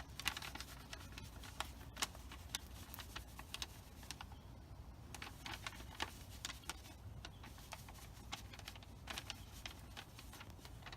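Faint, irregular light clicks and taps, several a second, over a low steady hum.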